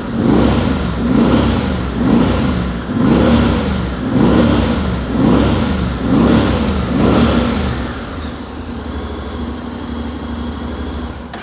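Honda X-ADV 750's 745 cc parallel-twin with a 270-degree firing order being blipped on the throttle: about eight short revs, roughly one a second, then settling to a steady idle about eight seconds in. The exhaust note is rough rather than smooth, with a V-twin-like beat.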